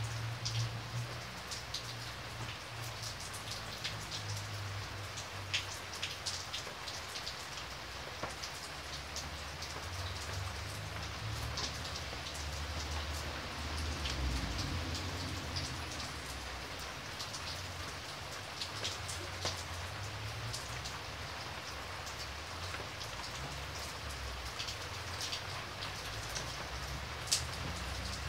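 Heavy rain falling steadily, a dense hiss with many sharp taps of drops striking close by, over a low uneven rumble.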